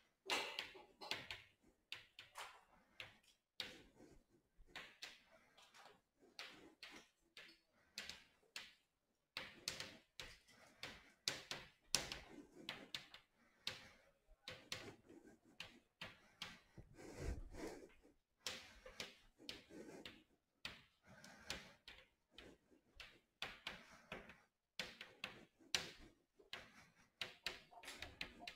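Chalk writing on a chalkboard: an irregular run of light, quick taps and short scrapes as figures and letters are written, with brief pauses between groups.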